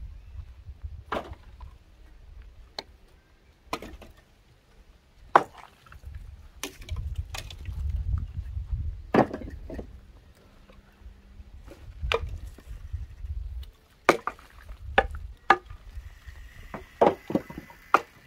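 Firewood being chopped by hand: sharp single blows of a blade on wood, spaced irregularly a second or more apart, with a quicker run of blows near the end. A low rumble comes and goes underneath.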